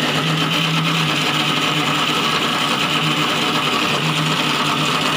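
Electric mixer grinder (mixie) running steadily, grinding cake batter to blend in added sugar.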